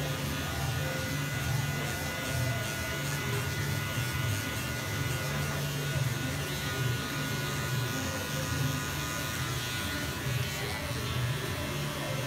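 Cordless electric hair clippers running with a steady buzz, trimming short hair.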